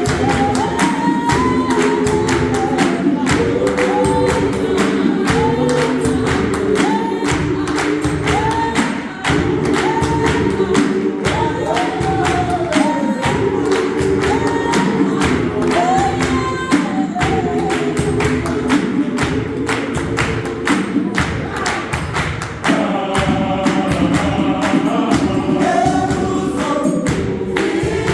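A gospel choir singing in harmony over a steady percussive beat.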